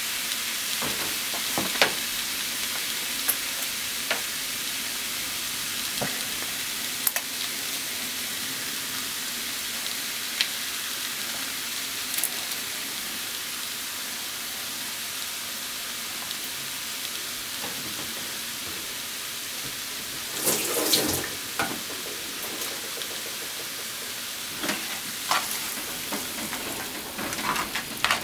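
Chicken, potatoes and onions sizzling steadily in a frying pan, with scattered small pops. A brief louder noise comes about two-thirds of the way in, and near the end a utensil clacks in the pan as the food is stirred.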